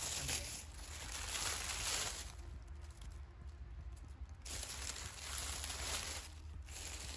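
Rustling and crackling of dry fallen leaves and undergrowth as someone moves in close to the forest floor, coming in spells with a short lull around the middle.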